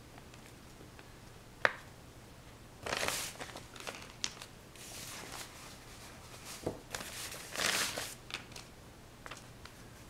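Handling noises in a small room: a sharp click, then several short rustling, scraping passes with scattered light clicks and taps between them.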